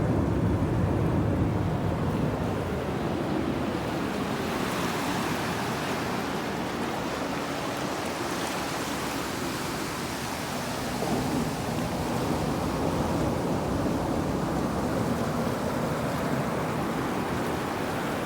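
Ocean surf washing against the rocky shore in a continuous rush, with one wash swelling about four seconds in and easing off after about ten. Low wind rumble on the microphone early on.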